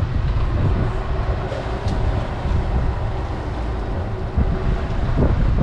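A sailboat's inboard engine running at idle: a steady low rumble, mixed with wind buffeting the microphone.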